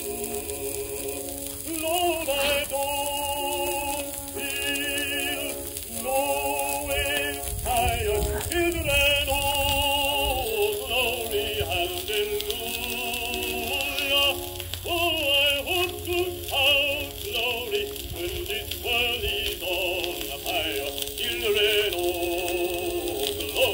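A negro spiritual sung with strong vibrato and long held notes, over a steady hiss.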